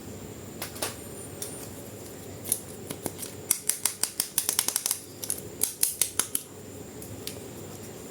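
Scissors snipping: a few scattered sharp clicks at first, then a quick, dense run of snips through the middle before it stops.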